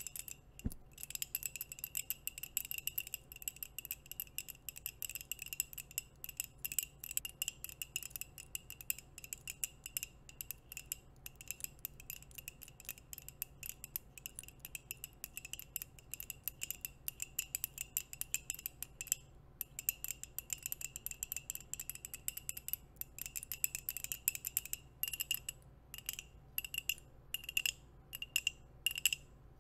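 Long fingernail-style nail-ring tips tapping rapidly on a mug held right at the microphone: a dense, steady run of light ringing clinks. Near the end the tapping slows into separate taps, about two a second.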